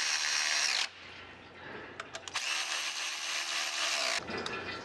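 Cordless electric ratchet whirring as it runs a bolt on the underside of an automatic transmission. There are two runs: the first stops about a second in, and the second lasts a little under two seconds and ends near the end.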